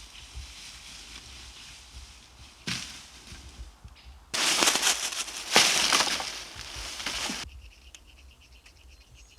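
Dry wood crackling and snapping: a short crackle, then about three seconds of loud, dense crackling with sharp pops that cuts off suddenly. A faint repeated high chirp follows near the end.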